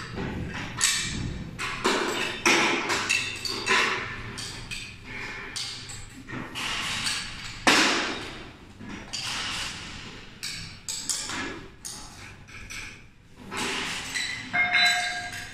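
Steel mounting bracket, bolts and washers knocking and clinking against the motor housing of a high-speed roller door as they are handled and fitted by hand: an irregular run of sharp knocks, the loudest about halfway through.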